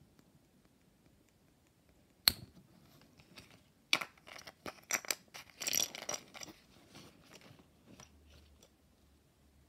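Plastic packaging of a Kinder Joy egg being handled and opened. There is a single sharp snap a little over two seconds in, then a few seconds of crinkling and clicking.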